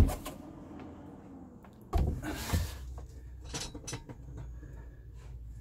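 Handling and movement noise: a sharp knock, then a louder bump about two seconds in and a second one just after, followed by a few faint sharp clicks over a low steady rumble.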